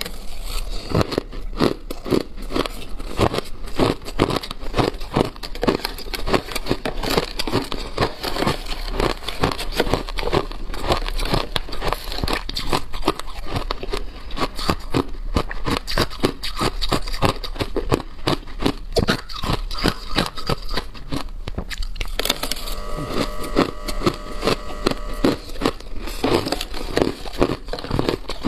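Crushed ice being crunched between the teeth, close to a clip-on microphone: a dense, continuous run of crackling crunches, thinning briefly about three-quarters of the way through when a few steady ringing tones come in.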